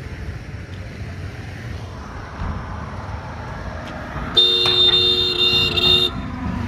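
A vehicle horn sounds once for about a second and a half, two steady pitches together, over a steady low rumble of vehicle traffic.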